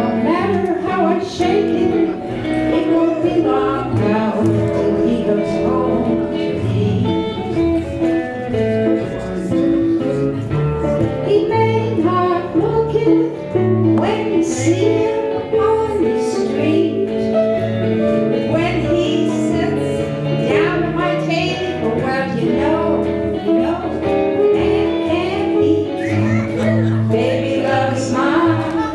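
Live acoustic folk band playing a song: electric bass and acoustic guitars with singing over them, continuing without a break.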